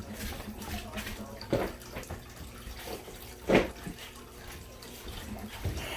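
Steady running-water noise in a kitchen, with two brief clatters, about one and a half and three and a half seconds in.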